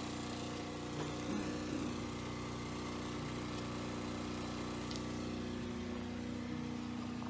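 A small motor or engine running steadily in the background, a constant low hum, with a few faint knocks about a second in.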